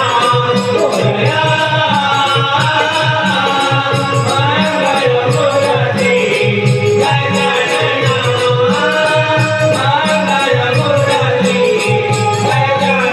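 Devotional Naman music: a Ganesh hymn sung over a steady drum rhythm with jingling percussion and a sustained melody, loud and continuous.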